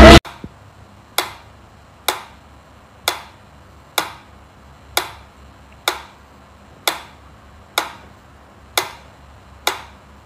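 Mechanical pendulum metronome ticking steadily, one sharp tick about every second. A snatch of music cuts off just at the start.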